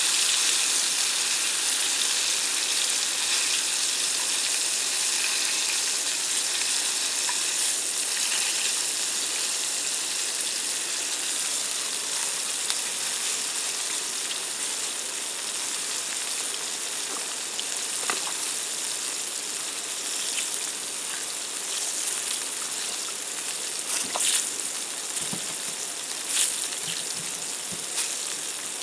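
Flour-dredged fish pieces frying: a steady sizzle that slowly gets quieter. A few sharp ticks and pops come near the end.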